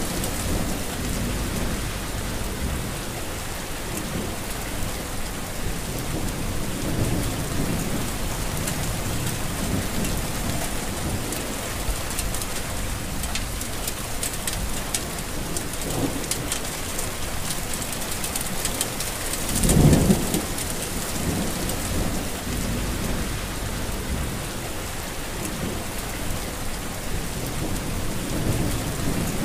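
Heavy rain falling steadily, an even hiss, with a brief low rumble about twenty seconds in.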